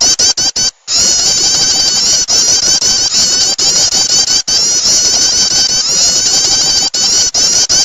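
Recorded prenjak (prinia) song used as a lure call for small birds: rapid, high-pitched chirping notes repeated many times a second, loud and continuous, with brief dropouts in the recording.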